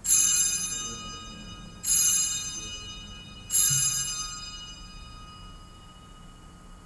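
Altar bell struck three times at the elevation of the chalice during the consecration, each clear metallic ring fading away before the next, about a second and a half apart.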